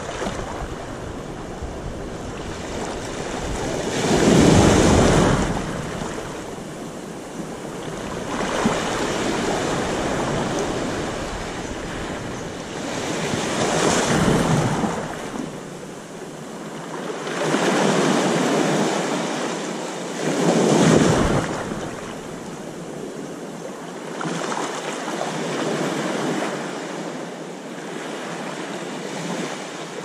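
Small waves washing up a sandy shore and drawing back: a swell of surf noise every four to five seconds, about seven in all, the loudest about four seconds in and again near two-thirds of the way through.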